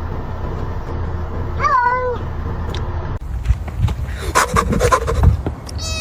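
A domestic cat meowing once, the call rising then falling in pitch, about two seconds in. Later come a run of knocks and thumps mixed with short cat sounds.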